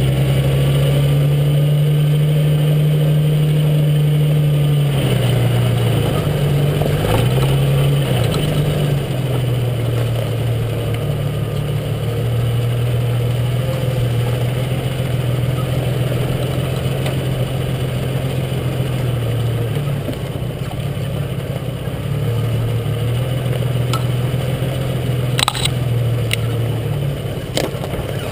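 Jeep Cherokee XJ engine running as the Jeep crawls off-road, heard from under the vehicle, its note stepping up and down in pitch as the throttle changes. A few sharp knocks near the end.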